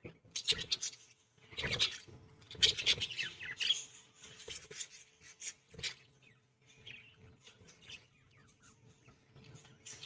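Budgerigars chattering and chirping in quick, high-pitched bursts, busiest in the first few seconds and thinner after, rising again near the end.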